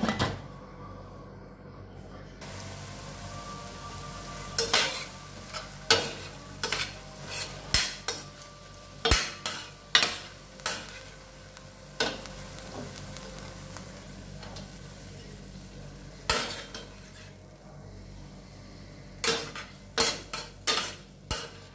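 Chicken strips sizzling in a stainless steel frying pan. A metal lid clanks at the start and the sizzle stays muffled until about two seconds in. After that a metal spoon scrapes and knocks against the pan again and again as the chicken is stirred and scooped out.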